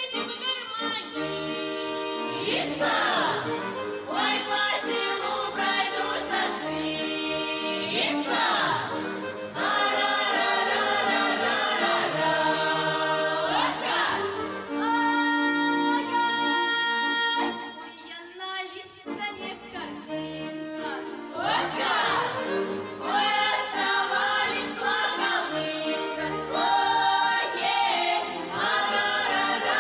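Children's folk ensemble singing a song together, several young voices in a choir-like blend, with a short pause between phrases about two-thirds of the way through.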